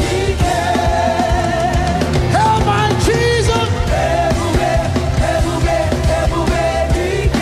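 Loud live gospel praise band music for dancing: steady drums and bass under a wavering lead melody line.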